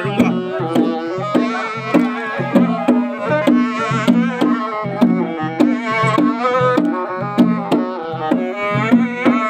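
Live traditional Dimasa folk music: a rope-laced khram barrel drum beaten by hand in a steady rhythm, under a sustained, wavering melody.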